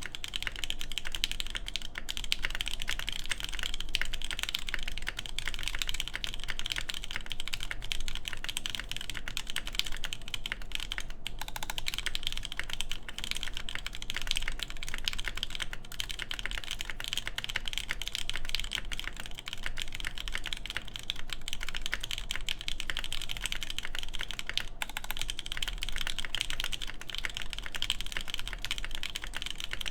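Continuous, fast typing on a mechanical keyboard (AKB Petrichor) with lubed Durock Lavender switches on an FR4 plate and DCS Windbreaker keycaps: a steady stream of rapid key clacks.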